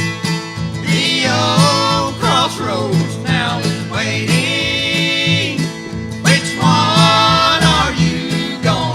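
Bluegrass band playing, with guitar and banjo picking a steady rhythm under a lead melody that slides into long held notes.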